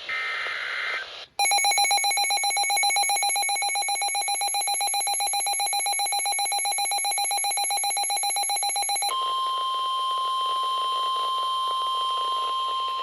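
Emergency Alert System tones: the tail of a SAME digital header burst, a raspy chirping data tone lasting about a second. After a brief gap comes the two-tone EAS attention signal for about eight seconds, then the steady single-pitch 1050 Hz National Weather Service warning alarm tone.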